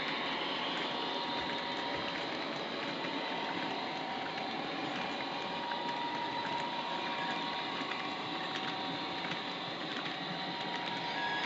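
Model railway freight train rolling past: a steady mechanical whirring with faint scattered ticks from the wagons running on the track.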